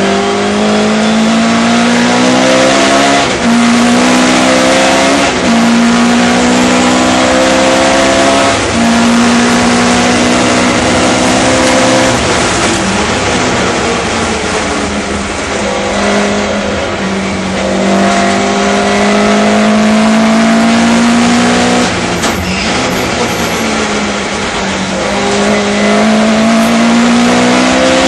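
Sunbeam Lotus's 2.2-litre Lotus four-cylinder engine under full racing load, heard inside the car. It revs up and drops in pitch at quick upshifts three times, eases off for a corner about halfway, pulls hard again, lifts once more and accelerates near the end.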